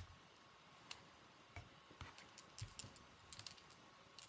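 Near silence with a few faint, irregularly spaced small clicks and taps from handling fly-tying tools and thread at the vise.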